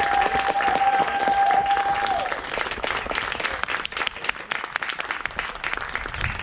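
Audience applauding, dense and irregular clapping from many hands. One long held whoop from someone in the crowd rides over the clapping and stops about two seconds in.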